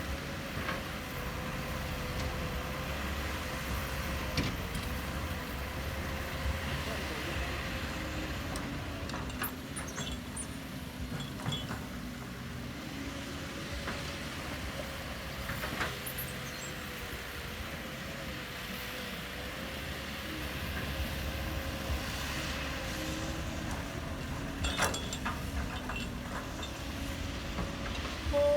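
A machine running steadily, a constant hum whose pitch wavers slightly, with a few scattered clicks and knocks.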